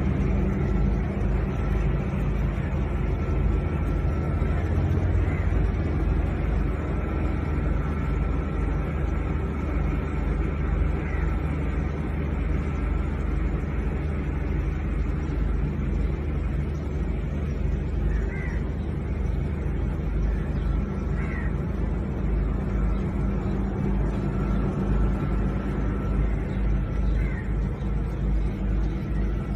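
Steady low outdoor rumble, with four short, faint crow caws scattered through it.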